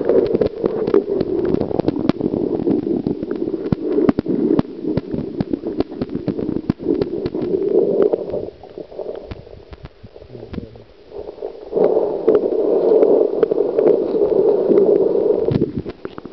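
Muffled underwater sound from a camera held below the river's surface: a dull, low water rush with many sharp clicks and knocks, dipping quieter for a couple of seconds in the middle.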